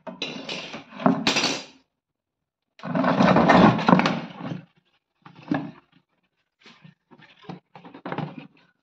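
Clear plastic jar being handled and scraped against a concrete floor, crackling and knocking in irregular bursts. The longest and loudest comes about three seconds in, followed by shorter scrapes and knocks.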